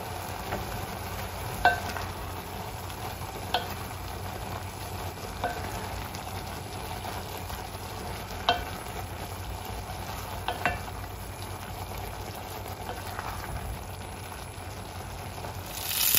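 Stir-fried noodles sizzling quietly in a stainless steel pot while a spatula stirs them, knocking against the pot every couple of seconds so it rings briefly. Just before the end a much louder frying sizzle takes over, from sausages and eggs in a pan.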